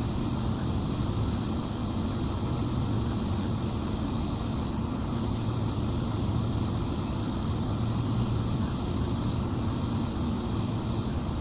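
Steady rush of air from the transmitter cabinets' cooling fans, with a low hum underneath.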